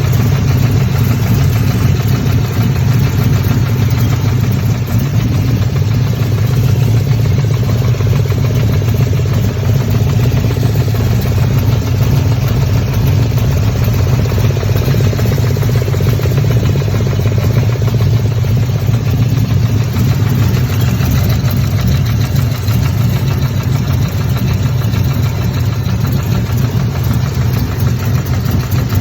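Chevrolet Camaro 1LE engine idling steadily at operating temperature, with a sound the owner suspects may be an exhaust leak.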